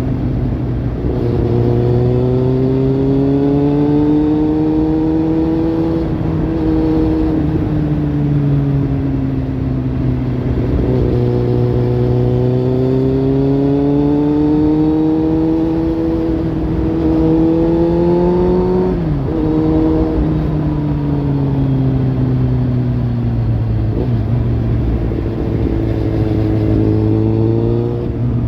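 Kawasaki Z800's inline-four engine through a Lextek slip-on exhaust, its pitch rising and falling slowly over several seconds as the revs build and ease off, with a brief sharp dip about two-thirds of the way through.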